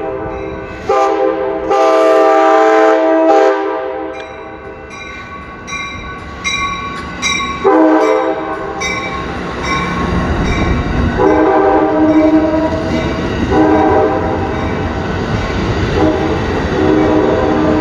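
Passenger train horn sounding a series of blasts as the Amtrak California train approaches, the longest a few seconds long near the start, with a bell ringing quickly in between. From about halfway through, the rumble of the bilevel cars rolling past on the street-running track sits under further short horn blasts.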